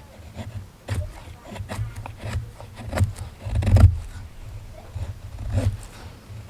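Knife blade shaving thin curls off a wooden stick to make a feather stick: a series of short, uneven scraping strokes, the loudest about four seconds in.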